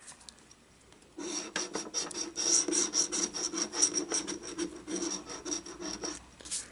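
A scratch-off lottery ticket being scratched: rapid rasping back-and-forth strokes that start about a second in and stop just before the end.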